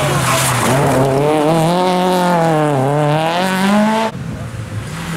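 A rally car's engine revs hard as the car slides through a tight junction. Its note climbs, falls and then climbs again as it accelerates out of the corner. The sound cuts off abruptly about four seconds in, and a fainter engine note from another car follows.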